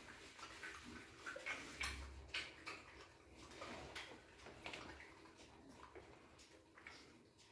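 Small dog eating from a ceramic plate: faint, irregular crunching and clicking of chewing and of food and teeth against the plate.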